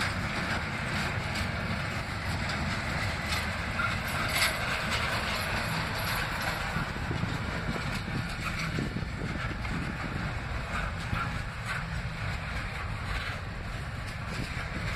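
Double-stack container freight cars rolling past: a steady rumble and rattle of steel wheels on the rails with scattered clanks, one sharper about four seconds in.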